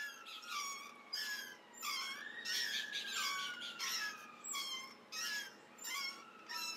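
Playground swings squeaking as they swing back and forth on their chains, a high squeak about every half second, with one longer squeal falling slowly in pitch in the middle.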